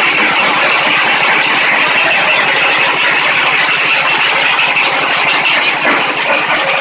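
Stone-crushing machine running steadily, making gravel: a loud, dense, unbroken clatter with a fast, even pulse underneath.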